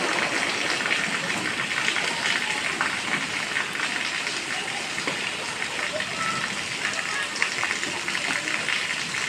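Heavy rain falling and splattering, a steady hiss of countless drops with fine crackling ticks throughout.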